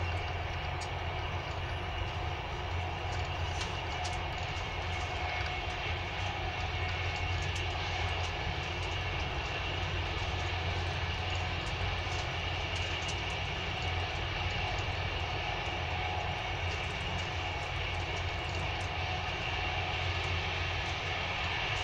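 Passenger train running at speed, heard from inside the carriage: a steady low rumble with a faint higher hum and scattered light clicks.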